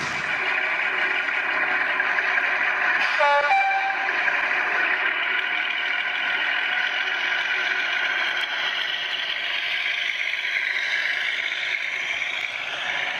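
Digital sound decoder in a Heljan OO-gauge Class 52 'Western' diesel model playing a diesel-hydraulic engine running under way through the model's small loudspeaker. A short horn blast comes about three seconds in, and the engine note rises near the end.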